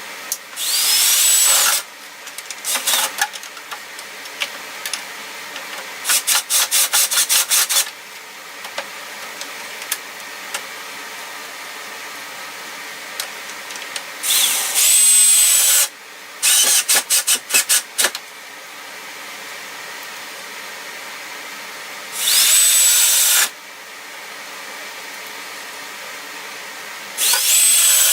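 Electric drill run in short bursts, each spinning up with a rising whine and then holding speed, with two stretches of rapid on-off trigger pulses. A steady hum runs underneath.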